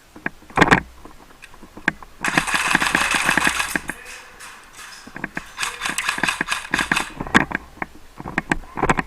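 Airsoft electric guns firing on full auto in two rapid bursts, one about two seconds in and one past the middle, each under two seconds long. Sharp knocks and clicks are scattered in between.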